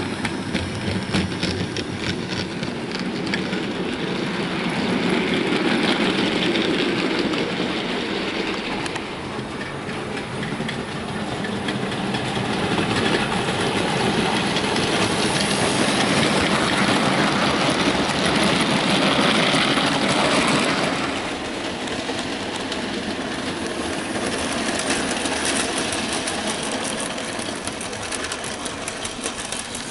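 An OO gauge Oxford Rail GWR Dean Goods model steam locomotive running with a train of loaded coal wagons. The motor whirrs and the wheels rattle over the rail joints, growing louder and fainter as the train passes close by and moves away.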